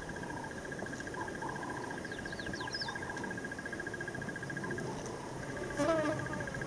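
An insect trills steadily at one pitch, a rapid, even buzz that drops out briefly about five seconds in and then starts again. A few faint high chirps come around two to three seconds in, and just before the end a short, louder call falls in pitch.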